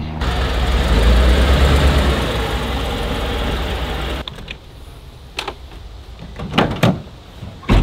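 A Ford F-150 pickup running with a low rumble as its tyre rolls onto a plastic traction board on grass. This stops suddenly about four seconds in, followed by a few sharp clicks and knocks as the rear window of the truck's camper cap is unlatched and lifted.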